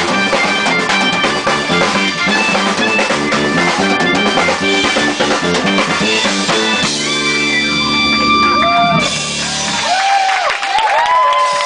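Live jazz-fusion band of electric bass, drum kit and clarinet playing a busy up-tempo groove. About seven seconds in the band hits and holds a final chord, then stops about two seconds later. The audience then cheers and whistles, with rising and falling whistles over the crowd noise.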